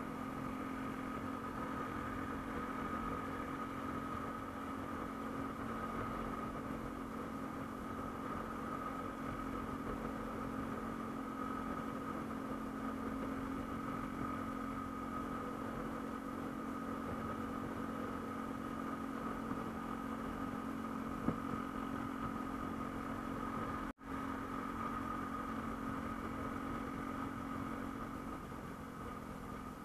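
Yamaha MSlaz single-cylinder motorcycle engine running at a steady speed, an even hum that holds one pitch throughout, with one momentary dropout late on.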